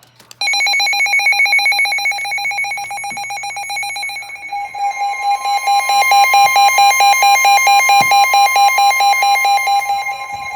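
Emergency alert attention tone: a loud electronic alarm tone that starts abruptly and pulses rapidly, with a second, higher tone joining about four and a half seconds in to form a two-tone alarm.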